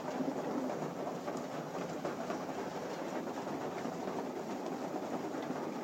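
A loft section full of racing pigeons feeding: a dense, steady clatter of many small pecks and taps.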